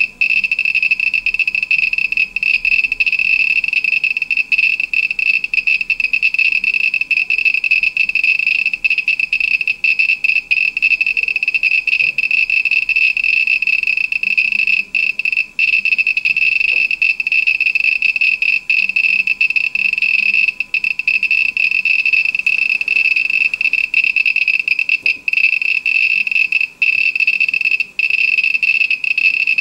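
Homemade Geiger counter with an SBM-20 tube, clicking for each count so fast, about 30 to 40 a second, that the clicks run together into a loud, steady, high-pitched buzz with brief gaps. This is the sign of a strong radioactive source held against the tube, reading about 16 µSv/h.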